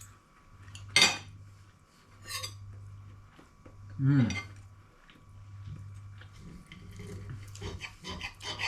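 Cutlery knocking and scraping on a plate while eating, with a sharp clink about a second in and a few lighter taps near the end. A short murmur from the eater about four seconds in, over a steady low hum.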